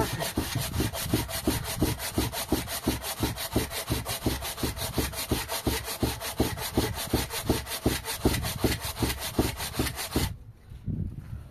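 Rhythmic rasping strokes, about five a second, steady and loud, that stop abruptly about ten seconds in.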